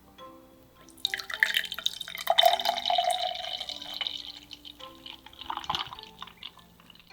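A wet, liquid sound, loud for a few seconds and then fading, over soft background music.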